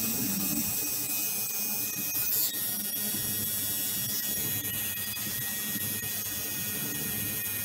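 Electric tattoo machine buzzing steadily while the needle works into skin.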